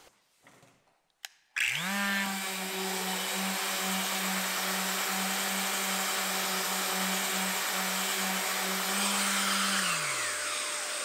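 Electric random orbital sander giving a freshly filled knot a light sanding. A click, then the motor spins up a little over a second in, runs steadily, and near the end is switched off and winds down with a falling pitch.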